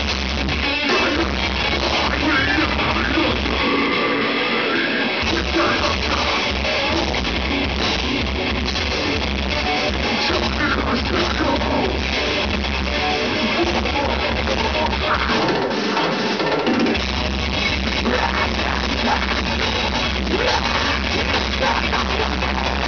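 Melodic death metal band playing live: distorted electric guitars and bass over a pounding drum kit. The deep low end drops out twice, for over a second each time, about four and sixteen seconds in.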